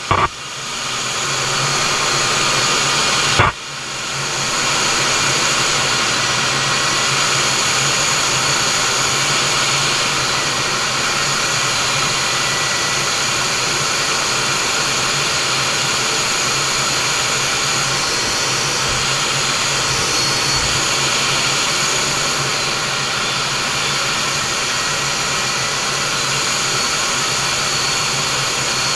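Steady noise of a MiG-29's twin jet engines and rushing air heard inside the cockpit in flight. There is a short click and a brief dip in level about three and a half seconds in.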